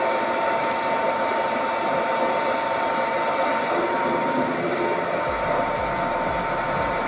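A motor running steadily with a constant whine, joined about five seconds in by a low, irregular thumping.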